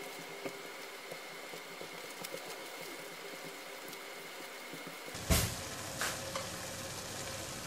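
Chili paste (sambal) sizzling as it fries in hot oil in a pan, with small crackles as it is stirred with a silicone spatula. A single sharp knock a little over five seconds in, and a lighter one about a second later.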